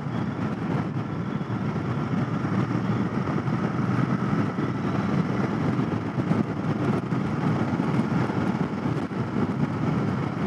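Royal Enfield Continental GT 650's 648 cc parallel-twin engine running steadily while the motorcycle cruises along the road.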